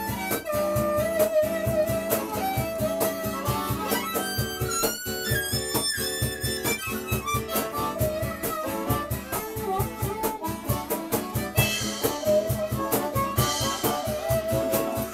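Amplified blues harmonica solo, the harp cupped against a handheld bullet microphone, playing bending notes over the band's steady beat.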